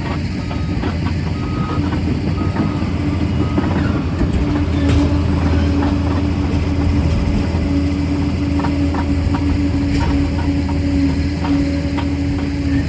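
Liebherr PR 746 crawler dozer's diesel engine running steadily, with scattered clanks from its steel tracks.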